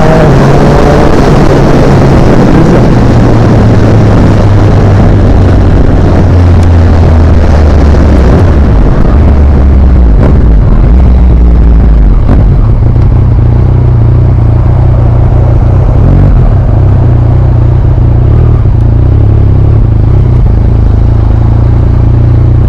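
A 2020 Yamaha MT-09's three-cylinder engine running through an Akrapovic exhaust while the bike is ridden, with wind noise. The engine note drops about a quarter of the way in, stays lower for several seconds, then settles back at a steady pitch for the rest.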